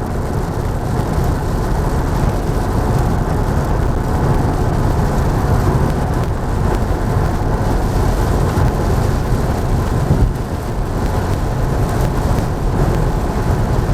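Car driving through heavy rain, heard from inside the cabin: a steady rush of tyre, road and rain noise with a low rumble.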